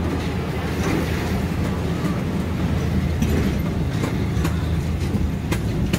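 Small amusement-park ride train rolling along its track: a steady low rumble with a few sharp clicks from the wheels and carriages.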